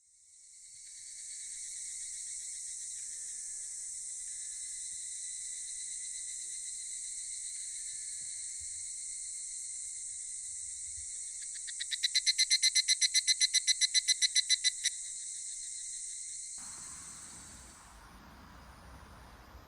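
Insects singing: a steady high-pitched shrill, joined about twelve seconds in by a louder, rapidly pulsing call for about three seconds, then stopping, leaving faint outdoor background noise.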